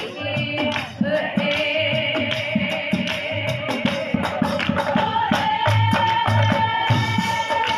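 Assamese Nagara Naam devotional music: long sung notes held over a steady beat of drum and hand claps, the held note stepping up about five seconds in.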